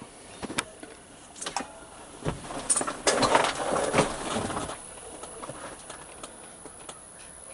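A few sharp clicks, then about two seconds of dense rattling and rubbing, as of plastic parts being handled and fitted during work on a truck's dashboard.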